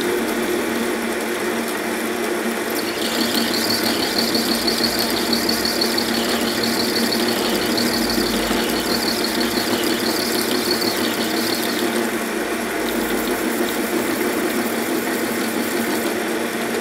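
Mini lathe running steadily, its motor and drive humming, as an insert tool turns down the outside of a POM (acetal) plastic nut. A high-pitched wavering squeal from the cut comes in about three seconds in and stops about twelve seconds in.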